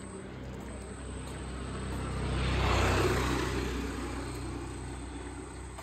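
Motor scooter passing close by: engine and tyre noise build, peak about three seconds in, then fade as it rides away.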